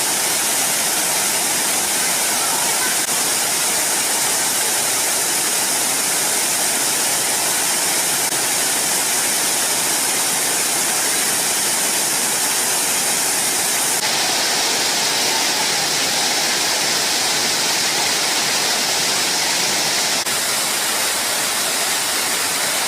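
Waterfall pouring: a loud, steady rush of falling water. The hiss of the rush grows brighter about 14 seconds in and eases again about 20 seconds in.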